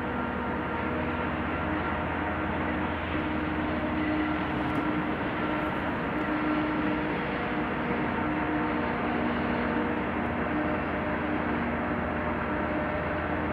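Diesel locomotive running, a steady drone with several held tones over a rumbling noise.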